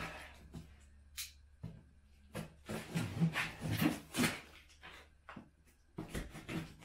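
A large cardboard shipping box being handled: a run of short, irregular scrapes and knocks, busiest in the middle.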